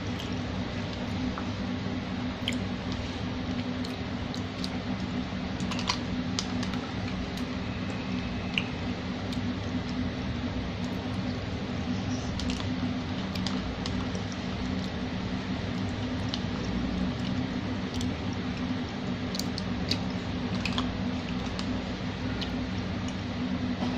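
Scattered small clicks and taps of a spoon against a cup of iced dessert while eating, irregular and a few seconds apart, over a steady low hum.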